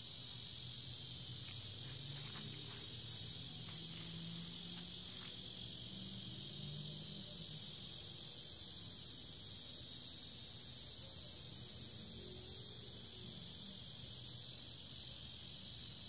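Steady high-pitched chorus of insects, with a faint low hum underneath for the first few seconds.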